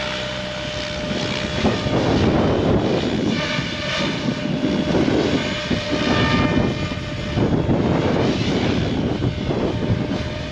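Goosky RS7 electric RC helicopter in flight, its rotors and motor giving a whirring rush that swells and fades every couple of seconds as it manoeuvres.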